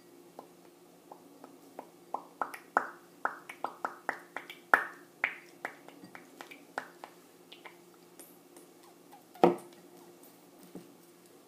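Light, irregular clicks and taps as a plastic doll is dipped and handled in a small glass bowl of water: several a second at first, then sparser, with one louder knock near the end. A faint steady hum runs underneath.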